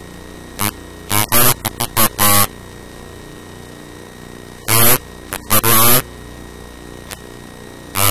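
A voice speaking in short phrases with pauses between them, over a steady electrical hum and hiss.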